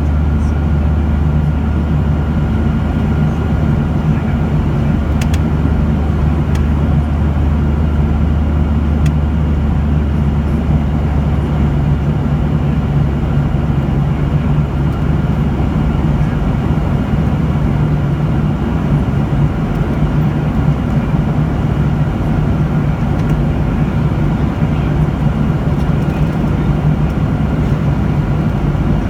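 Steady cabin noise of a jet airliner in flight: an even rush of engine and airflow with a low rumble underneath and a faint constant hum.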